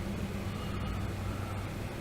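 Steady low rumble and hum of road traffic, with no sharp knocks or voices.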